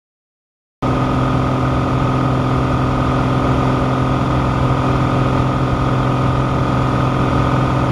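Piston engine and propeller of a single-engine light aircraft running steadily in flight, a loud even drone with a low steady hum. It starts abruptly about a second in.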